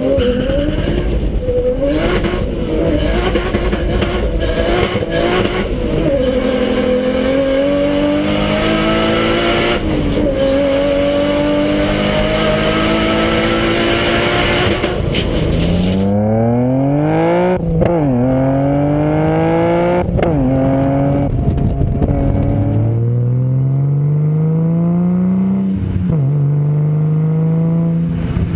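Nissan Skyline straight-six engines accelerating hard through the gears. The note climbs in pitch and drops sharply at each upshift. First comes a Skyline R33 GTS heard from inside the cabin; from about halfway on it is a Skyline R32 heard at its rear bumper, shifting up three times.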